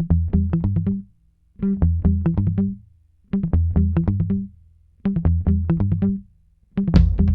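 Background music: four short phrases of plucked guitar and bass notes separated by brief pauses, then a drum beat joins near the end.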